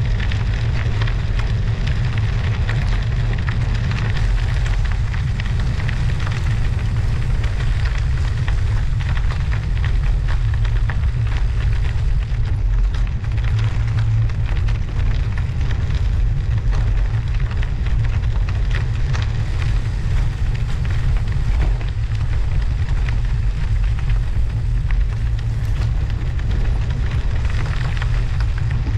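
Schwalbe Marathon Winter Plus studded bicycle tyres rolling over snow and ice with a dense, continuous crackle, under a steady low wind rumble on the bike-mounted action camera's microphone.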